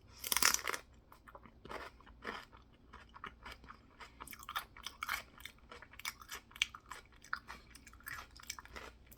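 A loud crunching bite about half a second in, then continuous open-mouth chewing with irregular crunches and crackles: a person chewing a mixture of peanut butter, celery and raisins.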